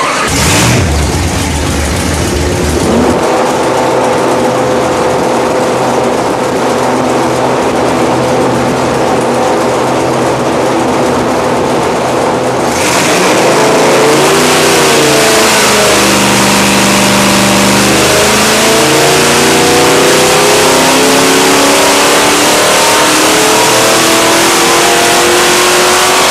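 331 cubic-inch small-block Ford V8 running on an engine dyno during a test run. It starts with a loud low burst about half a second in, then holds a steady speed. About 13 seconds in it gets louder and the pitch wavers, and from about 19 seconds on the pitch climbs steadily as the revs rise.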